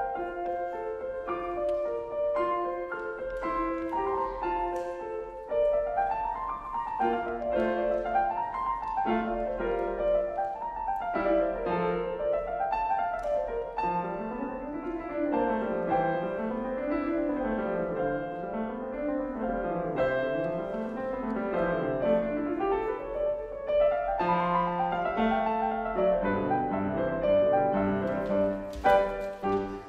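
Solo Steinway grand piano played at a moderate, steady level. In the middle stretch, fast arpeggios sweep up and down the keyboard again and again.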